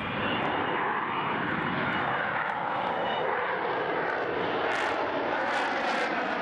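Jet aircraft engines running: a steady, loud rushing noise with a slowly shifting, sweeping tone.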